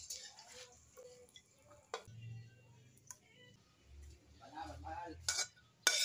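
Metal cooking utensil knocking and clicking against a wok and a ceramic plate as cooked pancit canton noodles are served out, a few sharp clicks spread through, the loudest near the end.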